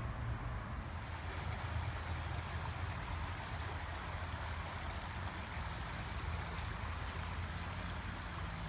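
Small creek running steadily, an even rushing hiss of water, over a steady low rumble.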